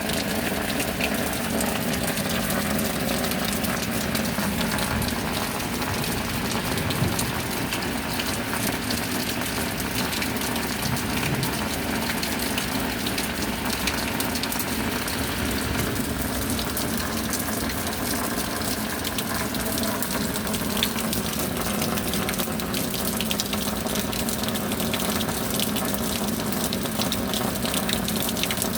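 Steady rain with water running, an even rushing noise that goes on without a break.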